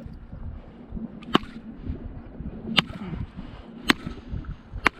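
Four sharp whacks about a second apart: a small fish bat striking a lake trout's head to kill it.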